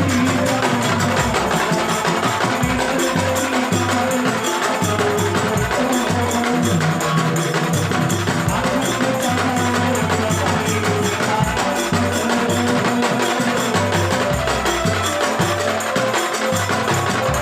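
Music with steady percussion and a bass line that moves from note to note.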